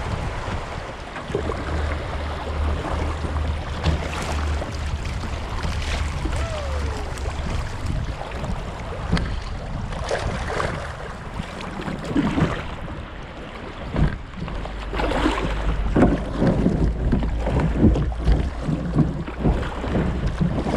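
Kayak paddling on a shallow river: repeated paddle strokes dipping and splashing water, over a steady low rumble, heavier in the second half.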